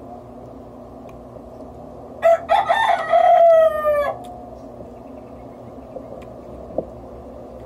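A rooster crowing once, about two seconds in: a couple of short broken notes and then a long held note that slides down in pitch, about two seconds in all.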